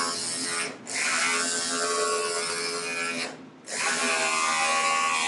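Cordless electric scissors running in three bursts, a steady motor buzz broken by short pauses about a second in and past the middle, as the blade cuts through masking tape and plastic sheeting.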